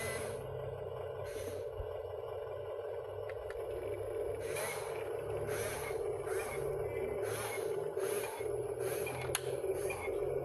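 Excavator running steadily while it digs. From about four seconds in come repeated short scraping noises, roughly two a second.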